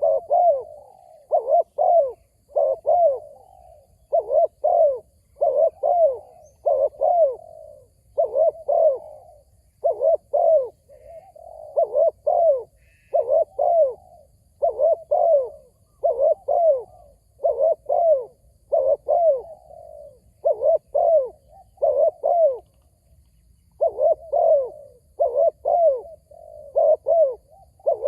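Spotted dove cooing in short phrases of two or three notes, repeated every second or two, with a short pause about three quarters of the way through.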